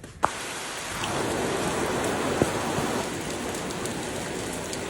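Heavy rain pouring steadily, its hiss cutting in suddenly with a click just after the start and swelling over the next second or so, with a single sharp tap about two and a half seconds in.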